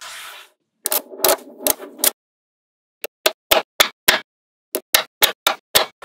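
Small magnetic balls snapping together as they are set in place: sharp clicks, a few in the first two seconds followed by a brief rattle, then two quick runs of about six or seven clicks each.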